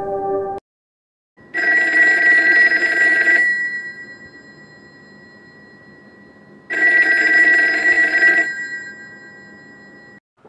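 Bell of a black rotary-dial telephone ringing twice. Each ring lasts about two seconds, and the bell tone fades slowly after it. The rings are about five seconds apart.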